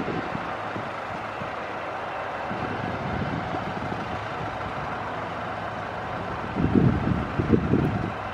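Ice-cream van's engine idling steadily, a low even rumble under a hiss. A few louder low gusts of wind on the microphone near the end.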